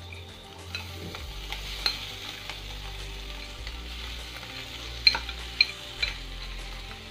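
Oil sizzling steadily in a kadhai as soaked poha (flattened rice) is tipped in from a glass bowl onto the frying onions and potatoes, with a few sharp taps, the loudest about five seconds in.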